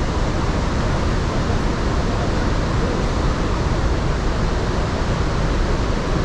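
Steady, loud roar of the Iguazu Falls, an even rush of falling water.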